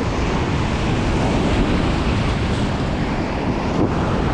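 Loud, steady rush of whitewater as a raft rides through a big-river rapid at high flow (about 47,000 cfs), with wind buffeting the microphone.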